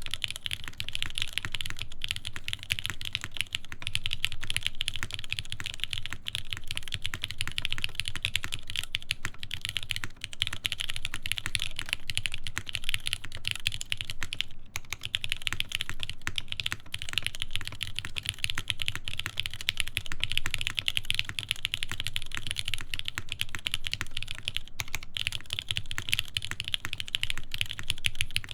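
Continuous fast typing on a mechanical keyboard with lubed Cherry MX Black linear switches, 67 g springs, a full carbon-fibre plate and GMK keycaps: a dense stream of keystroke clacks, with a brief pause about halfway through.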